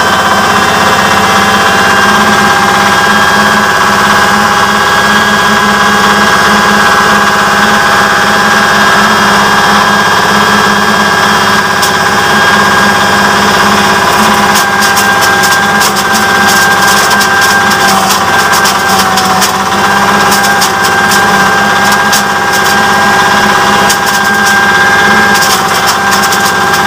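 Flour mill driven by a small single-cylinder diesel engine, running with a steady high whine as dried corn cobs are fed in. From about halfway a dense rapid crackle starts as the cobs are smashed, the mill running without its screen to chop them coarse.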